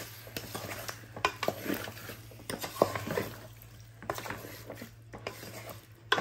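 Wooden spatula stirring sliced tomatoes in a metal pot, with irregular knocks and scrapes against the pot and a light sizzle of the oil beneath, as the tomatoes fry on a high flame.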